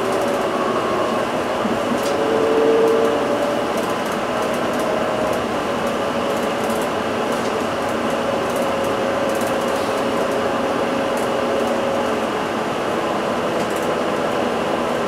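Inside an Isuzu Erga Hybrid (QSG-LV234N3) city bus while it drives: steady road and drivetrain noise with a faint tone that drifts slowly in pitch. It swells briefly about three seconds in, with scattered light ticks throughout.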